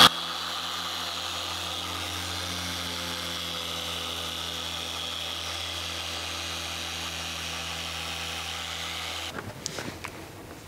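Electric orbital car polisher with a foam pad running steadily against a headlight lens, polishing it to bring up the shine, and switching off about nine seconds in. A towel then rubs faintly over the lens.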